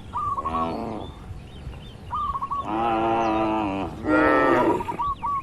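Cattle mooing: a short moo, then a long steady one and a louder one close after it. A bird repeats a short chirping phrase about every two seconds.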